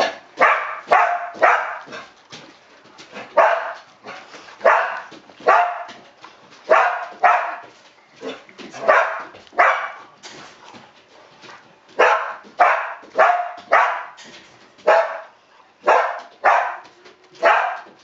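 A dog barking over and over, often two barks close together, at roughly one bark a second.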